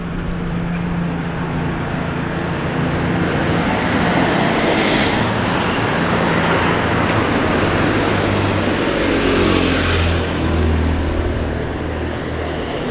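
Road traffic: cars driving past close by, with the tyre and engine noise swelling twice as vehicles pass, about five seconds in and again around ten seconds in, over a low engine drone.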